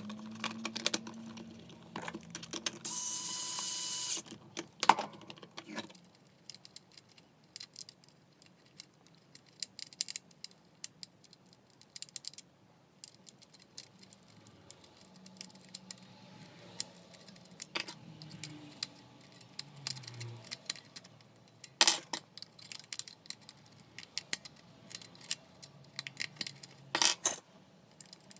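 Small clicks, taps and rattles of plastic and metal parts and screws being handled while a Makita 9901 belt sander is worked on, with a few louder knocks. About three seconds in there is a brief whirring burst of about a second.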